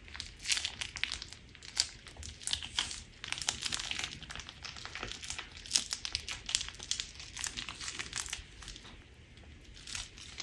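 Crunch slime being squeezed and pressed by hand, a dense run of sharp crackles and crunches that thins out near the end.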